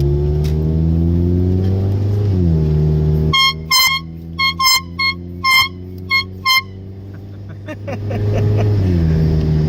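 Car engine accelerating, its pitch rising and then dropping back as the driver eases off. About three and a half seconds in, a handheld canned air horn gives a quick string of about eight short, sharp, shrill toots, and near the end the engine picks up speed again.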